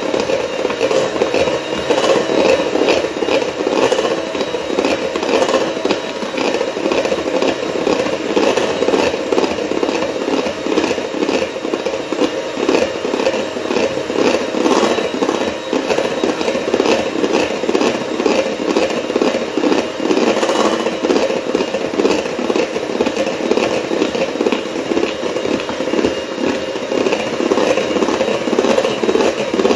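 Handheld electric mixer running steadily, its beaters whipping cream cheese frosting in a stainless steel bowl.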